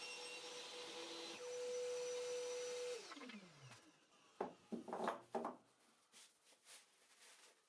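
Power saw running steadily, then switched off and spinning down with a falling pitch over about a second. A few sharp knocks follow, like wooden pieces being handled.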